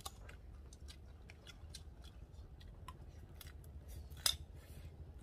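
Faint, irregular crisp clicks and crunches of people eating crispy fried fish, with one sharper snap about four seconds in.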